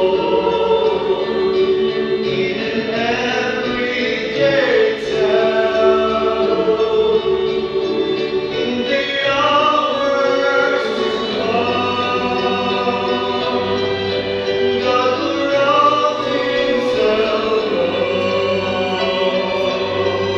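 Mixed choir of men and women singing, with a young man's solo voice in front through the microphone.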